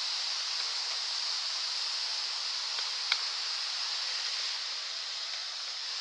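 A pileated woodpecker's bill striking a rotting log once, a sharp tap about three seconds in, over a steady high hiss.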